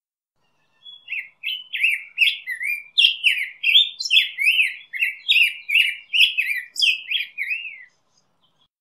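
Black-headed grosbeak singing: one long warbled song of quick, sliding whistled notes rising and falling in pitch, starting about a second in and running for about seven seconds.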